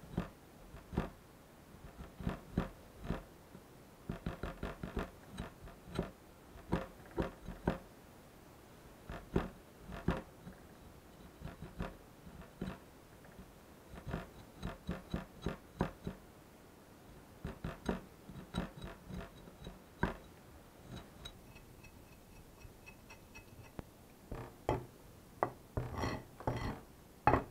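Steel meat cleaver blade cutting small shavings against a wooden chopping block: a string of irregular light knocks and cuts, with a few heavier chops into the wood near the end.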